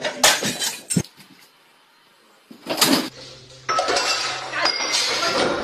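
Dishes and kitchenware clattering: a few sharp separate knocks at first, then a longer, dense run of clattering through the last two seconds.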